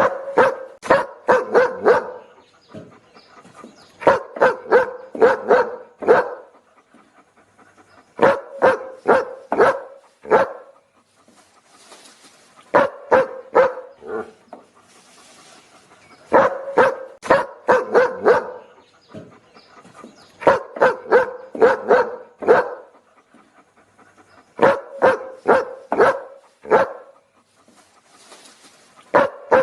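A dog barking in rapid volleys of five or six barks, a volley about every four seconds, the same recording repeating as a loop.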